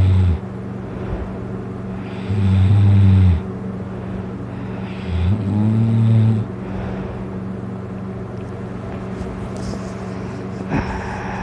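A man snoring loudly in a heavy drunken sleep. Long, low-pitched snores come right at the start and about two and five seconds in, then there is a long pause and a shorter, higher-pitched sound near the end. A steady low hum runs underneath.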